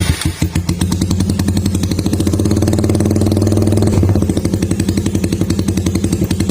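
Motorcycle exhaust through an old Daeng tube-type aftermarket muffler, the engine idling with a fast, even low pulsing. It gets a little louder for about two seconds in the middle, then settles back to idle.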